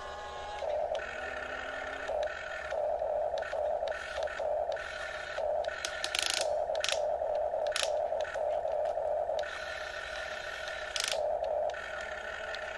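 Huina 1350 RC excavator's small electric gear motors whining in short on-off spurts as the boom, arm and bucket are worked, with a few brief scrapes as the bucket digs into dirt.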